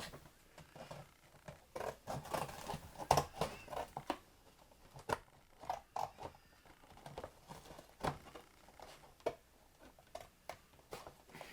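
Scissors cutting an opening in the side of a small-animal potty box: an irregular run of snips and crunches.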